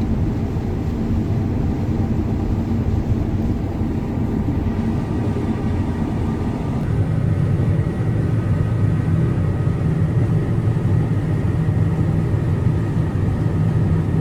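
An engine running steadily with a low drone; its tone shifts slightly about seven seconds in.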